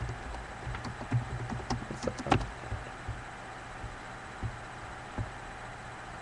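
A quick run of irregular clicks and knocks, loudest about two seconds in, then two single knocks near the end, over a steady low electrical hum.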